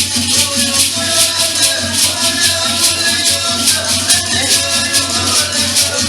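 Music with a steady, even beat of shaken percussion like maracas. A melody line comes in about half a second in.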